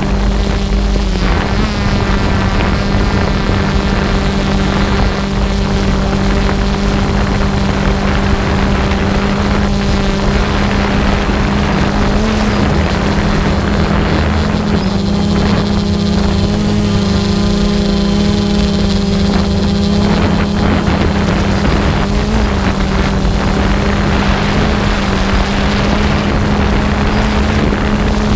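Small propeller aircraft carrying the camera, its engine and propeller droning steadily at one pitch with wind rushing over the microphone. An extra buzzing tone joins it for about five seconds past the middle.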